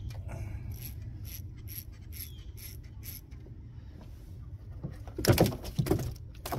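Fishing reel being wound in, with a regular ratcheting click about two to three times a second. A few loud knocks and rattles of handling follow near the end.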